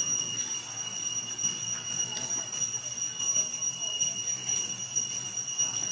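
A steady high-pitched drone, two tones one above the other, holds without a break over a low outdoor rumble.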